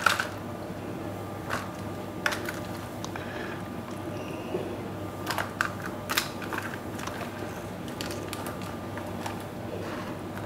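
Sparse light clicks and taps of kitchen handling, with raw calf's liver slices being laid in a dish and salted, over a steady low hum.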